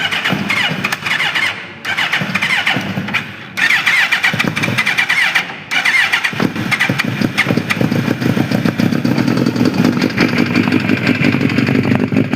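Suzuki GSX-R1000 inline-four being started: the starter cranks in several bursts with short breaks, and about six seconds in the engine catches and runs. The bike came in with a complaint of a knock in the engine.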